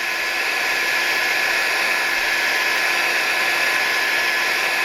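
Low-power heat gun blowing steadily, its fan a continuous rushing hiss with a steady whine in it, warming adhesive to loosen it.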